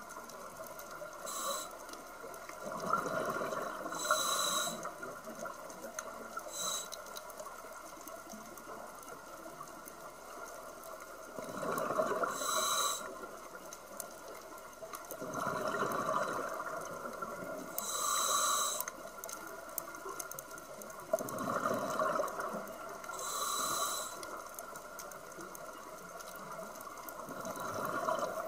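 Scuba diver breathing through a regulator underwater: a short hiss on each inhale, then a longer burble of exhaled bubbles, repeating for several breaths.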